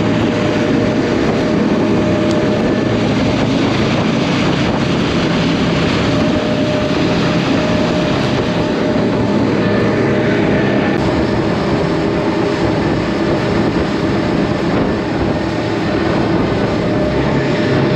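Twin outboard motors running steadily at cruising speed, with water rushing and spraying along the hull of the fast-moving boat.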